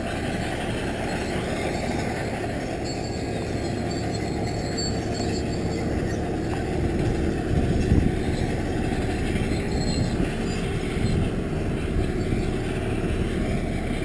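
Corratec mountain bike rolling over a rough gravel and dirt track: a steady rumble and rattle from the tyres and bike, with a louder jolt about eight seconds in.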